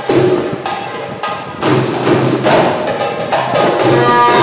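Live music from a tanoura dance ensemble: hand percussion strikes a beat, and sustained melodic notes come in near the end.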